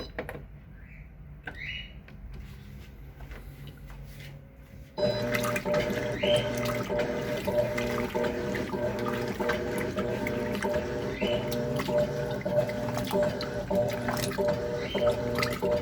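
Electrolux LTC10 top-load washing machine with a full load: about five seconds in, after a quieter stretch, loud water churning and splashing in the tub starts suddenly and runs on, as the machine agitates.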